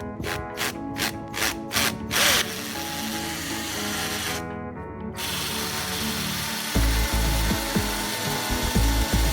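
Electric drill running, boring holes in a wall to mount a doorbell, starting a couple of seconds in and pausing briefly near the middle. Background music with a steady beat plays throughout.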